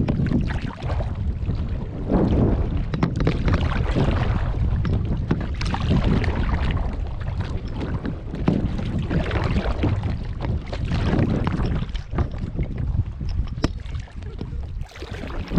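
Wind buffeting the microphone over choppy lake water splashing and lapping, in uneven surges.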